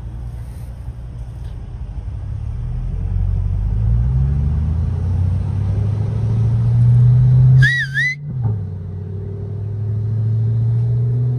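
Corvette V8 accelerating through the gears: the engine note climbs steadily, gets loudest around seven seconds in, drops at an upshift about eight seconds in and starts climbing again. A short, high, wavering whistle is heard just before the shift.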